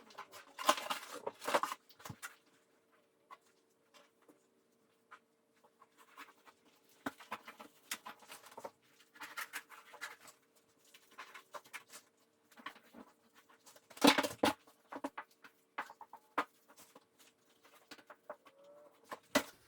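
Intermittent scrapes and rubs of a putty knife pressing and smoothing waterproofing fabric membrane into a shower corner, loudest about a second in and again about 14 seconds in, over a faint steady hum.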